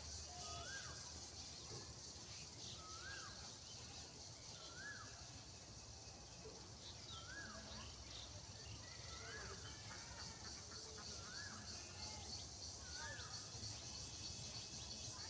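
A bird calling over and over outdoors: a short call that rises and then falls, repeated about once every two seconds, over a steady high hiss.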